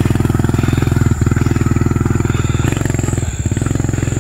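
Small motorcycle engine running under way at low speed with a fast, even firing beat, easing briefly about a second in and again past three seconds.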